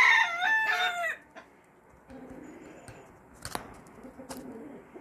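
A rooster crowing, its call ending about a second in, followed by soft low clucking of chickens and two sharp clicks.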